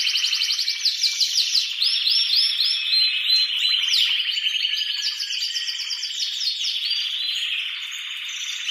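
Male domestic canary singing an excited breeding-season song: fast trills of rapidly repeated notes, switching from one trill to the next every second or two.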